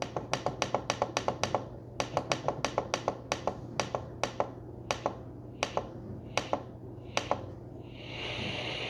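Plastic buttons on a Westclox digital FM radio alarm clock clicking as they are pressed over and over to step through the FM band, quickly at first and then more slowly. Over a steady low hum, a hiss of FM static comes in about eight seconds in as the radio sits between stations.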